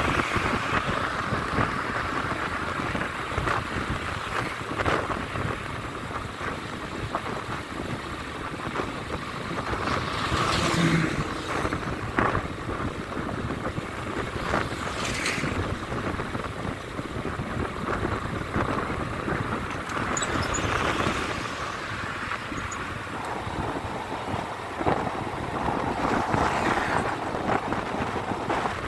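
Wind rushing over the microphone of a vehicle moving along a highway, with road and engine noise underneath. There are several brief louder gusts or passing vehicles.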